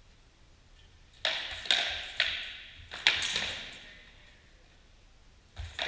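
Armoured fighters' practice weapons striking shield and armour: a quick run of about five sharp cracks in a little over two seconds, the last two almost together, then one more near the end, each ringing on in a large echoing hall.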